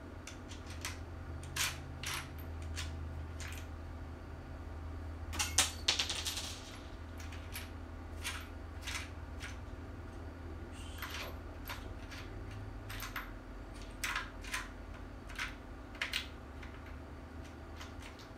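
Scattered sharp clicks and light clinks of small parts being picked through in a plastic parts organizer, with a brief rustle and a flurry of clicks about six seconds in.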